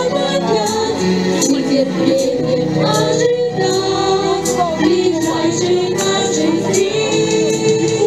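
A girl singing a song into a microphone over backing music with a steady beat.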